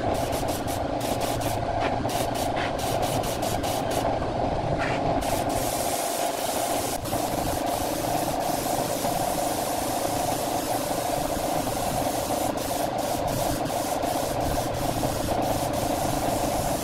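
Compressed air hissing from an air blow gun, pulsed in rapid short bursts over the first five seconds and then held continuously, over a steady machine hum.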